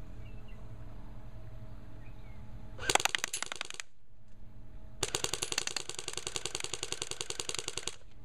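Airsoft Thompson submachine gun firing full-auto: a rapid rattle of shots about a second long about three seconds in, then a longer burst of about three seconds starting about five seconds in.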